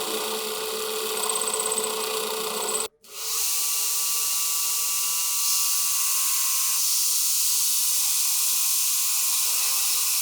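A small power tool running against metal parts. About three seconds in it cuts off abruptly, and then a steady, hissing grind carries on.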